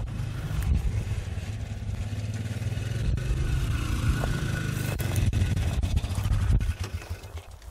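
A motor vehicle's engine running steadily, a low drone whose pitch shifts slightly partway through, fading near the end.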